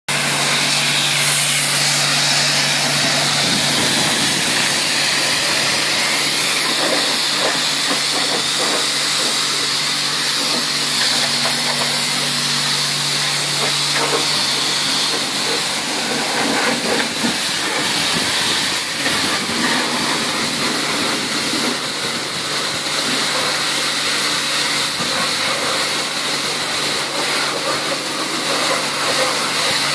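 High-pressure car-wash lance spraying hot water onto a car body: a steady loud hiss with a low hum running under it.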